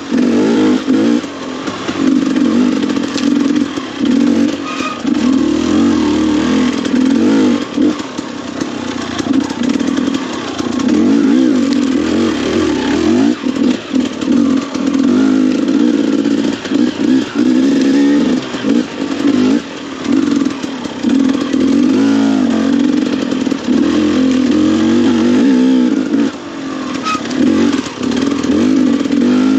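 KTM enduro motorcycle engine being ridden on a dirt trail, revving up and down with constant throttle changes and frequent brief let-offs.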